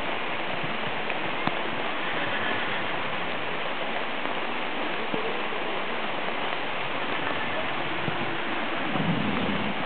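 Steady hiss of rain falling, with a few faint knocks and a brief low rumble near the end.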